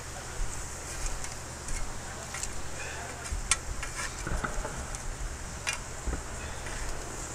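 A thin metal rod stirring and scraping through smoking titanium powder residue in a shallow steel tray, after the powder fire has been put out with FEM-12 SC: scattered light clicks and scrapes over a steady low rumble.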